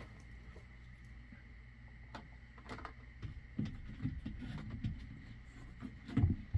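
Handling noises from an object being unboxed: scattered clicks, then a run of soft knocks and rustles, and one louder thump near the end, over a steady faint electrical whine.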